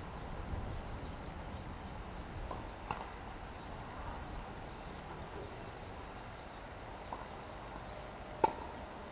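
A few sharp knocks of a tennis ball on racket or court: faint ones about three and seven seconds in, and a much louder one near the end, over a steady background hum.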